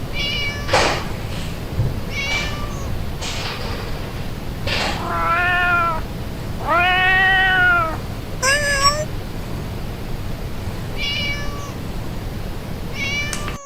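A cat meowing repeatedly: several short, high mews, and two longer meows in the middle that rise and fall in pitch.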